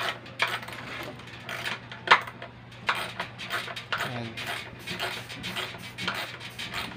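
Irregular metallic clicks and clinks of a wrench on the nuts of the motor's mounting bolts as they are tightened, the sharpest clink about two seconds in, over a faint steady low hum.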